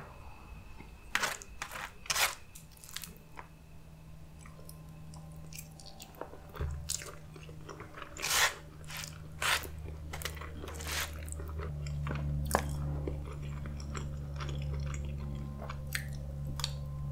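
Close-miked eating sounds: chewing and crunching of food with scattered sharp clicks. A steady low hum runs underneath, growing louder about seven seconds in and again about twelve seconds in.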